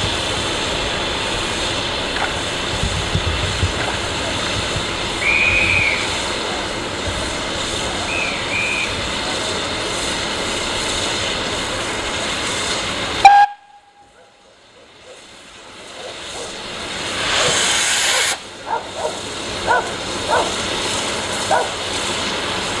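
Steam hissing steadily from a standing BR Standard Class 2MT 2-6-0 steam locomotive, with a few short high chirps. About thirteen seconds in there is a sharp click and a sudden drop to near silence. Then the steam hiss builds again, loudest a few seconds later, with crowd voices after it.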